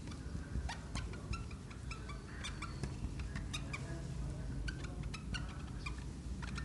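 Dry-erase marker squeaking and tapping on a whiteboard as words are written: an irregular string of short, high squeaks and light clicks over a low steady hum.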